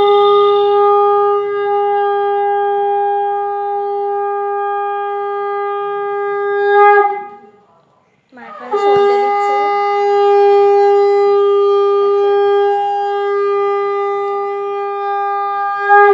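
Conch shell (shankha) blown in two long, steady blasts of about seven seconds each, with a short break between them. This is the blowing that marks the Bengali evening lamp-lighting (sandhya).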